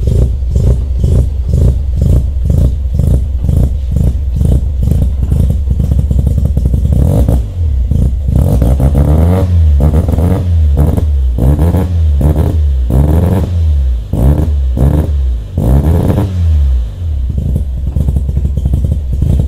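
Mazda RX-7 FC's 13B rotary engine idling with a steady, choppy pulse through a custom 3-inch stainless exhaust with a Vibrant resonator and muffler. About seven seconds in it is revved in a series of quick blips, then settles back to idle near the end.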